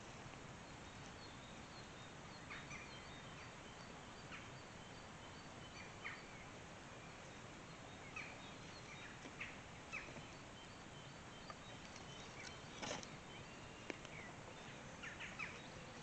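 Faint outdoor background with scattered short bird chirps and calls, and a few soft rustles or light knocks from handling wood.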